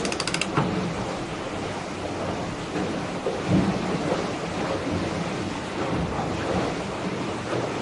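Rapid ratchet clicking of a yacht winch being wound, stopping about half a second in, then a steady rumble of wind buffeting the microphone and water rushing past the hull while under sail, with a louder gust about three and a half seconds in.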